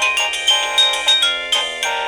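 Polyphonic ringtone melody from a Samsung SGH-E330N mobile phone: a quick tune of short bell-like notes with several notes sounding at once.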